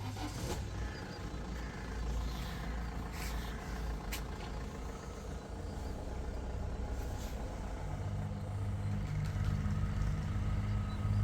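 A motor vehicle's engine running, a steady low hum that gets louder near the end, with a few short clicks.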